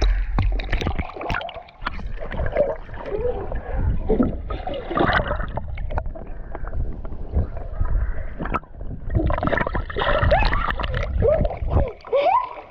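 Pool water splashing and sloshing close to a camera that dips in and out of the water, with a muffled underwater rumble and bubbling while a child swims. Near the end the rumble stops and a child's laughing voice is heard.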